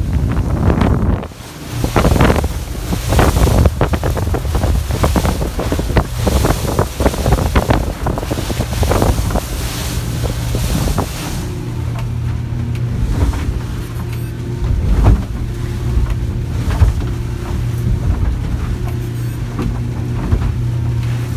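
Boat running through a rough sea in strong wind. For roughly the first half, gusts buffet the microphone and spray surges past in loud, choppy bursts. After that a steady low engine drone takes over, heard from inside the wheelhouse, with a few sharp thumps.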